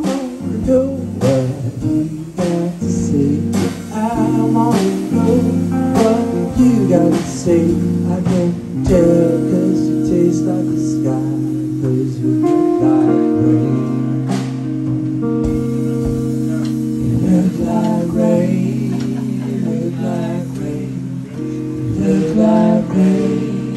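Live blues played on a solid-body electric guitar and a drum kit, the guitar carrying bending lead lines over a steady groove. Drum and cymbal hits are sharpest in the first half.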